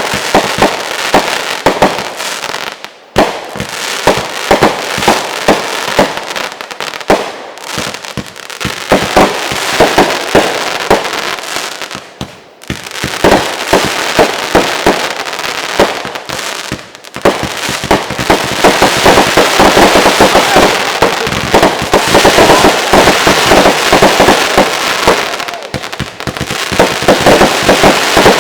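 Two consumer firework cakes, Winda's Avalanche and Dominator's Meltdown, firing crackle effects together: a dense, rapid crackling in waves, with brief lulls, that grows into an unbroken wall of crackle in the second half.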